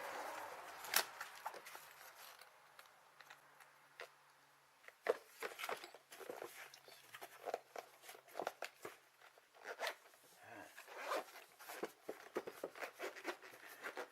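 Small tool case and its precision tools being handled and closed up: scattered light clicks, taps and rustles, busier in the second half.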